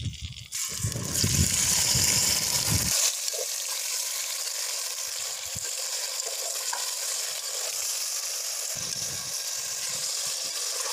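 Raw beef chunks sizzling in hot oil as they drop into a metal pot, searing on high heat. The sizzle starts suddenly about half a second in and is loudest for the first couple of seconds, with low thuds as the meat lands, then settles into a steady sizzle with faint clinks of a slotted metal spoon stirring.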